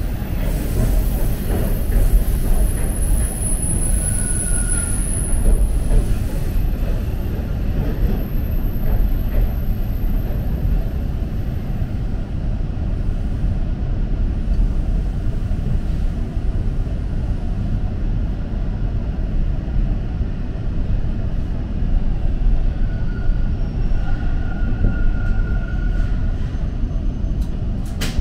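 TTC Line 2 subway train running through the tunnel, heard from inside the car: a steady low rumble of wheels on the track, with a faint thin wheel squeal about four seconds in and again from about twenty-three to twenty-six seconds.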